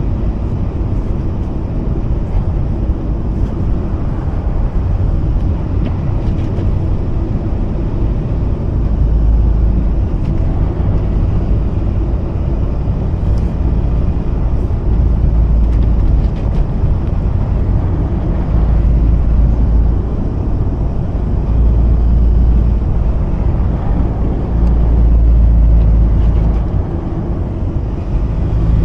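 Mazda RX-8's twin-rotor rotary engine running under way with steady road and tyre rumble, the low rumble swelling and easing several times.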